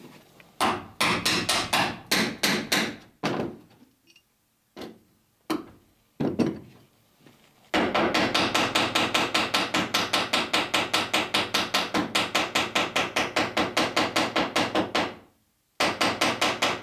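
Small ball-pein hammer striking copper rivets in rapid runs, fastening a wooden boat rib to its planking. A quick run of about ten blows comes first, then a few single blows, then a steady run of rapid blows lasting about seven seconds, and another run near the end.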